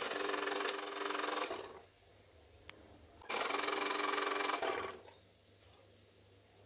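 Electric citrus juicer's motor running twice, each run lasting about a second and a half, as orange halves are pressed down onto its spinning reamer.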